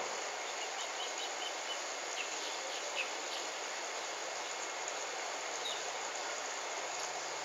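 Outdoor ambience: a steady hiss of background noise with short high chirps scattered through the first few seconds and once more near the end. A faint low hum comes in about four seconds in.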